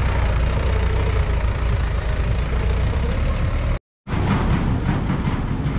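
Mahindra 575 DI tractor's four-cylinder diesel engine running steadily under heavy load, hauling a fully loaded trolley, with a low rumble. Just under four seconds in the sound drops out briefly, then a rougher, noisier tractor engine follows.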